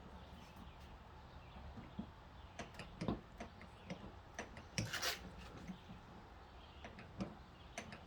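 Faint, scattered clicks and light taps, a few sharper ones around the middle and near the end, over a low steady hum.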